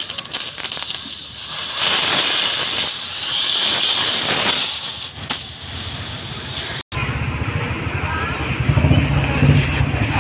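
Loud, steady hiss of compressed air at a tubeless tyre during a puncture repair. About seven seconds in it cuts off abruptly, and a low, pulsing motor sound takes over.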